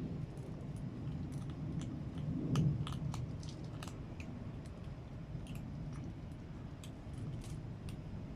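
A cat eating, its chewing heard as irregular small crunching clicks over a low steady rumble that swells briefly about two and a half seconds in.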